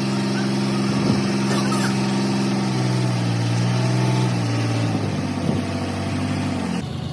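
A vehicle engine idling steadily, its pitch dropping slightly around three seconds in and again near five seconds, then giving way abruptly to a quieter, different sound near the end.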